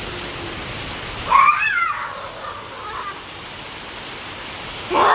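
Steady rain falling, with a short, loud, pitched call about a second in and another near the end.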